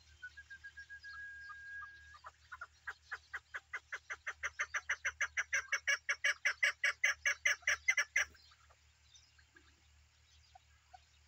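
Chukar partridge calling a long run of short chuck notes, about five or six a second, that speed up and grow louder for about six seconds, then stop abruptly. The run is preceded by a thin, steady tone lasting about two seconds.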